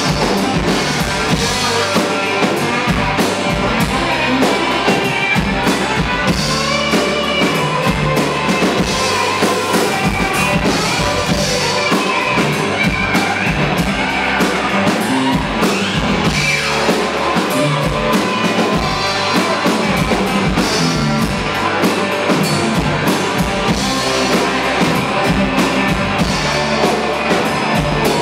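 Live country-rock band playing: electric guitars, bass guitar and a drum kit with a steady beat.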